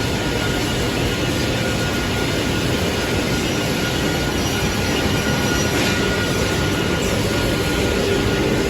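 Automatic panel saw machinery running: a steady whirring noise with a faint high whine and no separate cuts.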